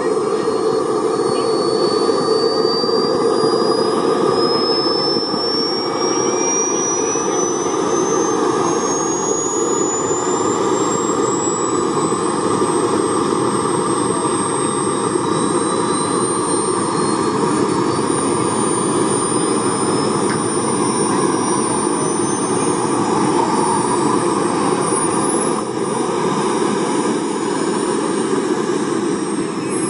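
Small gas-turbine engine of a radio-controlled model jet running, a steady loud rush with a high whine that climbs slowly in pitch.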